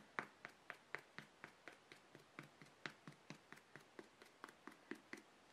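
Quick, faint taps, about four a second, of a makeup sponge dabbing sealer onto a vinyl reborn doll head.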